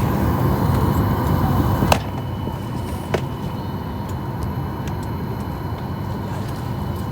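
Steady hum of an airliner cabin waiting on the ground, low and even with a faint high whine in it. Two short clicks come about two and three seconds in, and the hum drops a little in loudness at about two seconds.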